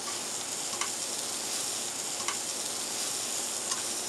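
Sliced bell peppers and onions sizzling steadily in hot olive oil in a sauté pan as they are tossed with tongs, with three light clicks along the way.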